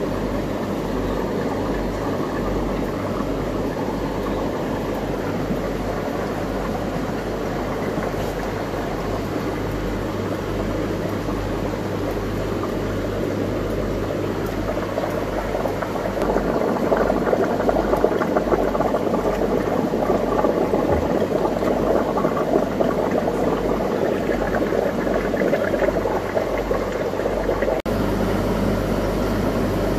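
Aquarium tanks with their filtration running: a steady rush of moving, bubbling water over a low mains-like hum, louder from about halfway through.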